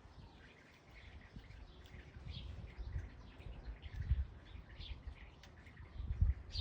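Birds chirping in short, scattered high calls, with several low thumps, the loudest about four seconds in and just before the end.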